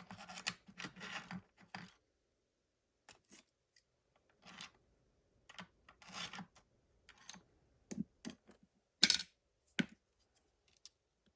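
Metal lock picks working in a padlock's keyway: short irregular scrapes and small clicks as the pick lifts pins against tension. The sharpest click comes about nine seconds in, with another just under a second later.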